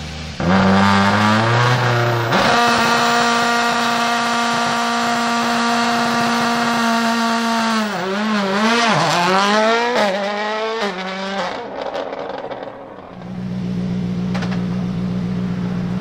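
Toyota Yaris WRC's turbocharged 1.6-litre four-cylinder engine jumps from idle to high revs and holds a steady pitch on launch control for several seconds. Its revs then swing up and down as the car pulls away, and the sound fades. For the last few seconds a Ford Fiesta WRC's engine idles steadily.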